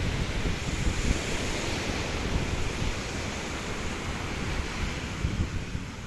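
Small surf washing up on a sandy beach in a steady hiss, with wind buffeting the microphone in a low, uneven rumble.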